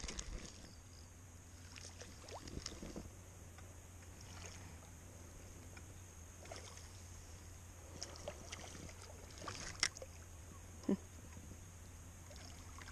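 Spinning reel cranked by hand while fighting a fish, giving faint scattered clicks and knocks of the reel and rod being handled, with two sharper knocks about ten and eleven seconds in, over a steady low hum.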